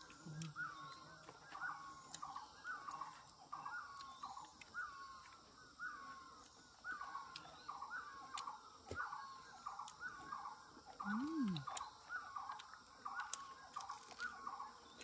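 A bird calling over and over, a short curved call repeated about twice a second. About eleven seconds in there is a brief low sound that rises and falls in pitch.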